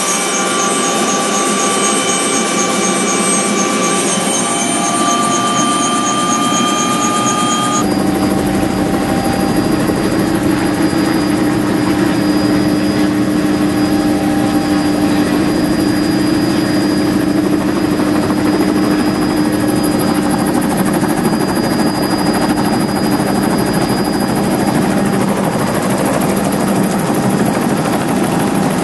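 Helicopter engine and rotor running, heard from inside the cabin. For the first several seconds a whine climbs slowly in pitch as the helicopter winds up for takeoff; about eight seconds in, the sound changes suddenly to a steady, lower drone.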